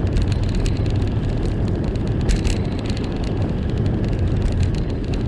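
Wind buffeting the microphone of a camera riding on a moving bicycle, a steady low rumble with frequent small clicks and rattles over it.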